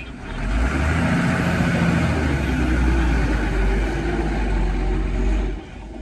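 Heavy machinery's diesel engine running loud and low, swelling up about half a second in, holding steady, then cutting off suddenly near the end.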